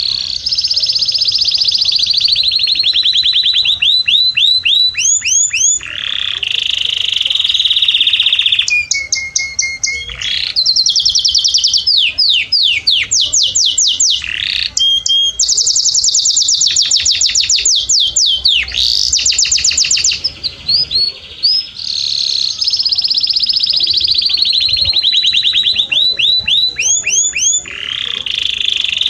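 Domestic canary singing a continuous song of fast trills and rolls. Phrases of rapidly repeated notes alternate, some sweeping down in pitch and others held at one steady pitch, with only brief breaks between them.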